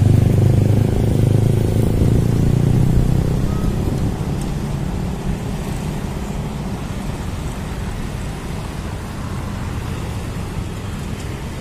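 Road traffic noise: a motor vehicle's engine hum, loudest for the first few seconds and fading after about four seconds, over a steady roar of traffic.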